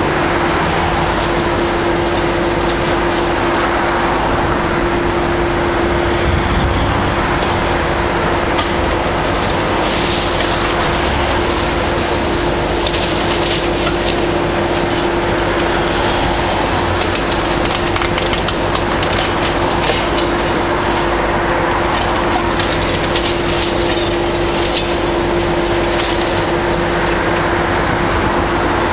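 Heavy demolition excavator running steadily under a constant noise of engine and hydraulics, with a steady hum throughout as its long-reach arm works on the building.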